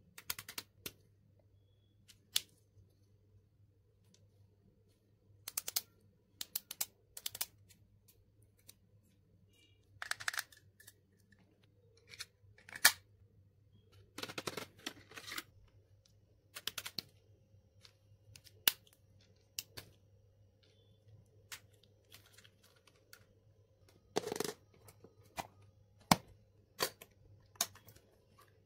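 Plastic stationery being handled: irregular clicks and taps of plastic highlighter pens and a hard plastic pencil case, with a few longer scratchy rustles of the pens' clear plastic packaging.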